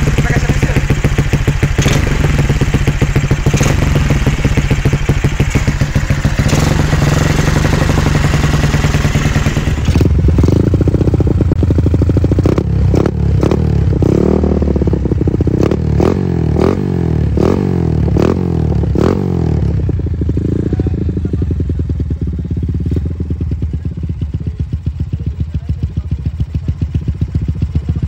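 Yamaha LC135 single-cylinder four-stroke engine idling through a GL Racing cutting-standard exhaust with its silencer insert fitted. About ten seconds in, the sound changes to the same exhaust without the silencer, heavier in the low end, with a run of quick throttle blips and one longer rev, then it settles back to a steady idle.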